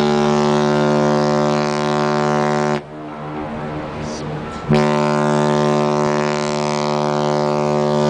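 Liberty of the Seas' ship horn sounding two long, loud, deep blasts, the first cutting off about three seconds in and the second starting about two seconds later.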